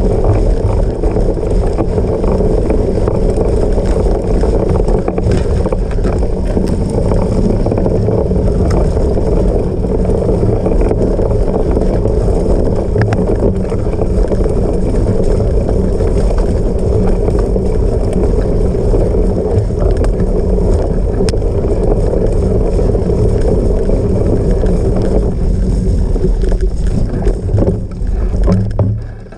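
Cyclocross bike ridden over rough off-road ground: a steady loud rumble of knobby tyres and wind across the microphone, with light rattling through it. It dips briefly at the very end.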